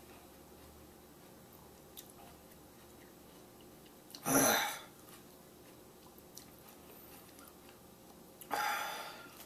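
A man chewing a Trinidad Scorpion Butch T chili pepper, with faint mouth clicks, and coughing twice, about four seconds in and again near the end, as the pepper's burn hits his throat.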